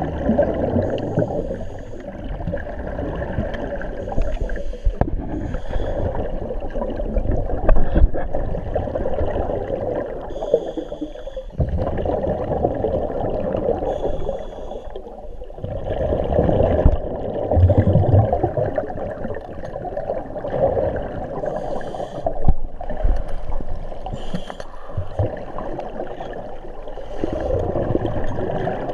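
Scuba divers breathing through regulators, heard underwater: exhaled air bubbles gurgling and rumbling in surges that swell and fade every few seconds, with brief higher hisses now and then.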